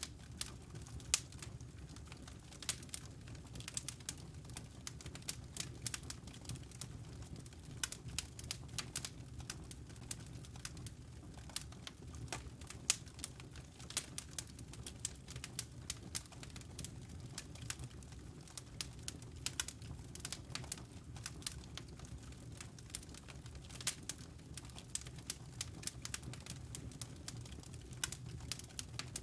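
Wood fire crackling in a fireplace: many small irregular pops and snaps over a steady low rumble.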